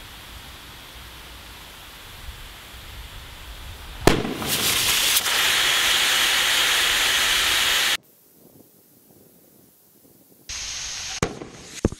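Compressed air hissing faintly into an over-filled American football until it bursts with a really loud bang about four seconds in. A loud hiss of air rushing from the compressor hose through the broken filling nozzle follows for about four seconds and cuts off suddenly. Near the end come more sharp bangs.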